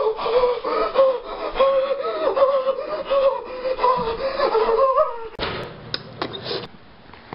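A teenage boy's long, wavering, drawn-out yell lasting about five seconds, then a rustle and several sharp clicks near the end.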